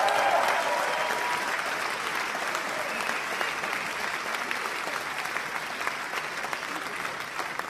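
Audience applauding, loudest at the start with a few voices calling out, then slowly dying down.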